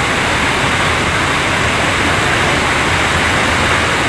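Loud, steady rush of water pouring over a concrete weir, an even noise with no breaks.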